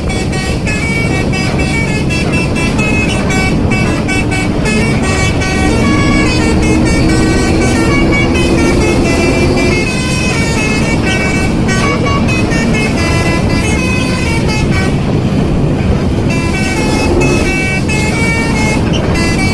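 Telolet basuri musical bus horn playing a continuous tune of quick stepped notes, loud, over a low rumble.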